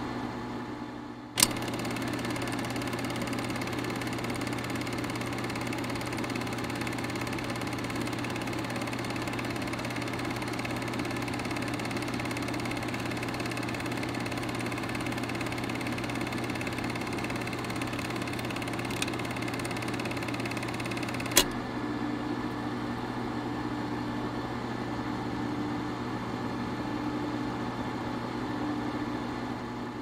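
Antique Bell & Howell film projector running steadily with a mechanical whir. The sound drops away just after the start, and the projector comes back up with a sharp click about a second and a half in. Another sharp click comes about twenty-one seconds in, and the sound drops away again at the very end.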